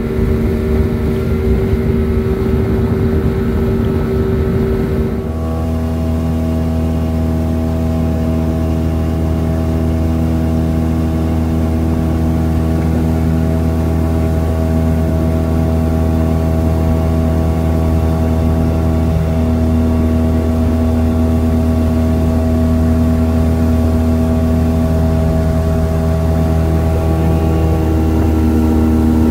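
Motorboat engine running steadily under way, an even droning note with the rush of wind and water; the engine's note changes about five seconds in, then holds steady.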